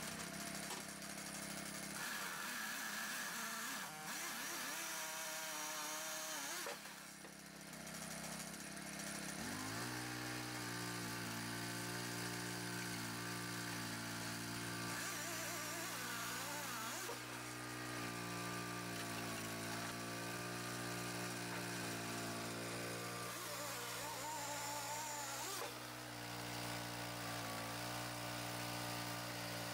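An engine running steadily. About ten seconds in, a deeper engine note starts and holds.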